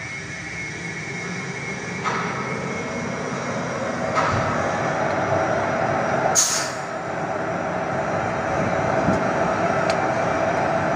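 Locomotive machinery running with a steady hum that grows slowly louder, with a couple of light metallic clicks and one short, sharp hiss of air about six seconds in as the brake hoses between locomotive and coach are being coupled.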